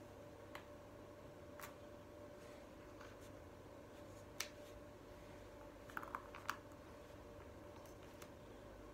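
Sparse faint clicks and taps of shape pieces being handled and set down on a play board: single ticks every second or few, the sharpest about four seconds in, and a quick cluster of three or four near six seconds. A faint steady hum sits underneath.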